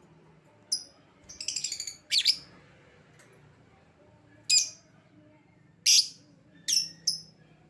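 Lovebird calling: short, shrill chirps spaced about a second apart, with a quick rattling chatter about a second in.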